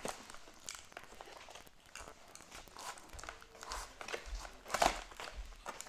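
Cardboard toy box with a plastic window being handled: scattered rustles, taps and crinkles of the packaging, with a louder crackle near the end.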